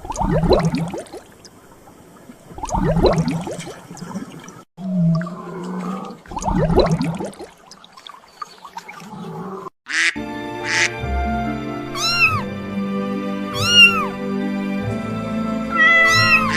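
A cat cries out three times, each cry drawn out for about a second and a half. Background music starts about ten seconds in.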